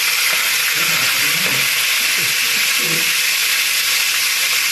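Whole fish deep-frying in a pan of hot oil, giving a steady, loud sizzle.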